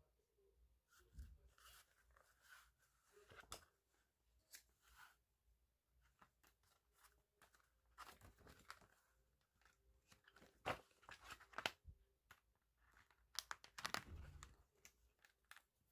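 Quiet, irregular paper tearing and scratchy rustling with small clicks, as a spiral notebook is pulled apart by hand, its pages torn free of the wire binding.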